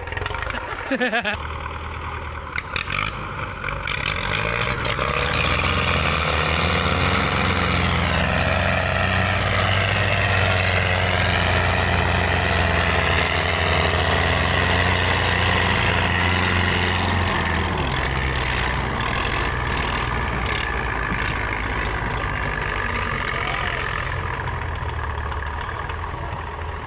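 Two Belarus diesel tractor engines running hard under heavy load, straining to drag a stuck, fully loaded trolley, with the engine note rising and falling as they labour. A man's voice is heard briefly at the start.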